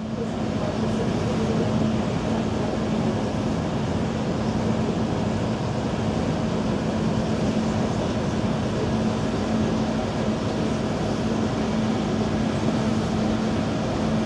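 Steady ventilation machinery running: a constant rushing of air with a low, even drone and a fainter higher tone held throughout.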